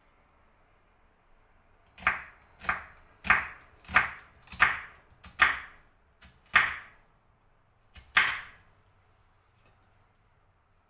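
Knife slicing an onion on a chopping board: about nine crisp cuts, roughly one every two-thirds of a second, starting about two seconds in and stopping a couple of seconds before the end.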